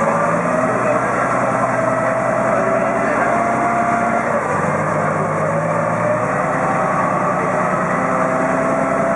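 River ferry's engine running steadily under way, its note dropping slightly about four seconds in.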